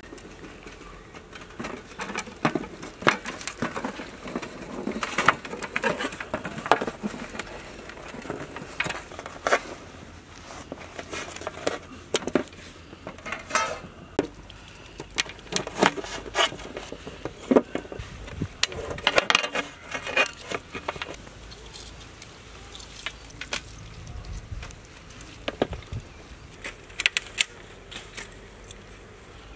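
Knives cutting lemons on a large steel tray: irregular clicks and taps of the blades striking the metal, with clinks of a steel bowl, busiest in the first two-thirds.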